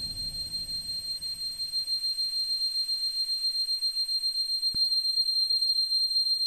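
Steady, high-pitched electronic tone from the film's score, held unchanged while the low rumble beneath it fades away over the first two seconds; a single sharp click comes about three-quarters of the way through.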